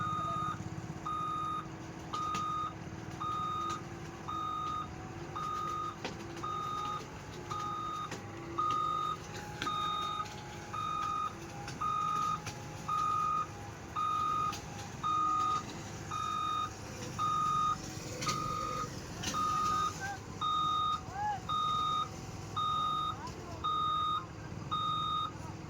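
Loader's reversing alarm beeping steadily, one single-pitched beep about every second, over the machine's engine running as it backs down the ramp off the trailer.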